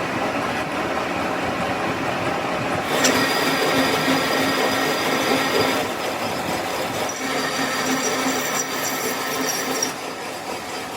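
Metalworking noise: a steady grinding rush with high metallic squealing tones joining about three seconds in and easing near the end.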